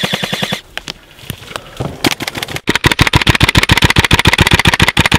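Airsoft rifle firing on full auto: a short burst, a few single shots, then a long burst of rapid, evenly spaced shots from about two and a half seconds in.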